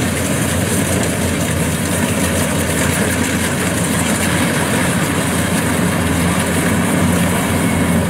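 Kubota DC-105X rice combine harvester's diesel engine and threshing machinery running steadily as it cuts through the rice.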